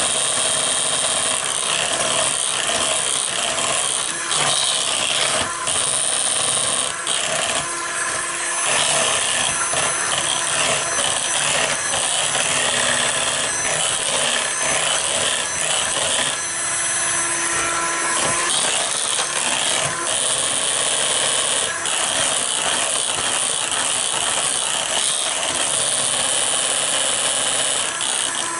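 KitchenAid electric hand mixer running steadily, its beaters whirring through thick cake batter in a mixing bowl.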